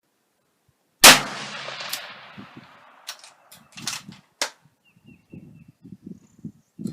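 A single rifle shot from a .277 Wolverine AR-15 about a second in, its echo dying away over about a second. Several sharp clinks and clicks and a few low knocks follow.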